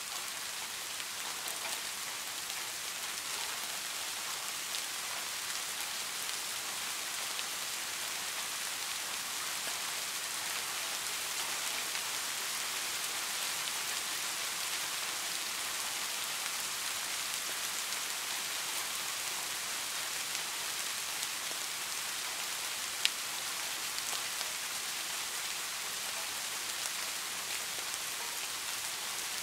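Steady rain falling, an even hiss of many fine drops pattering on a surface, with one sharp tick about three-quarters of the way through.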